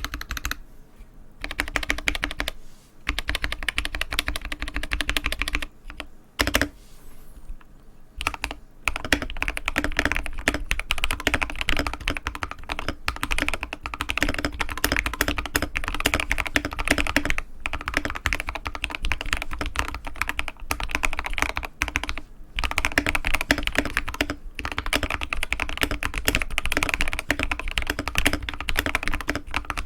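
Fast continuous typing on a modded Keychron K6 Pro mechanical keyboard, a dense run of keystrokes broken by a few short pauses.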